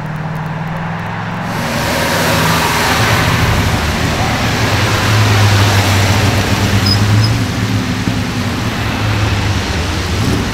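Sports car passing on a wet road: a low engine note with the hiss of tyre spray. It builds to its loudest about halfway through, then eases off.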